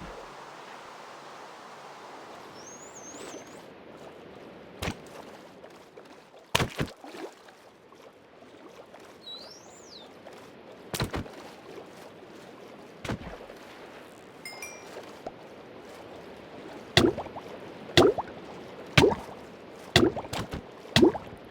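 Steady outdoor background noise with two brief bird chirps, a few scattered knocks, then a run of six loud knocks about a second apart starting near the end.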